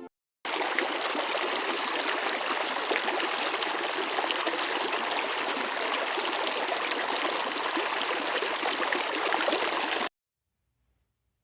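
River water rushing steadily over a log, cutting off suddenly about ten seconds in.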